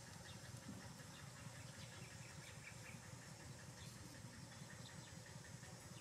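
Near silence: a faint, steady low background hum with a few faint high chirps and ticks.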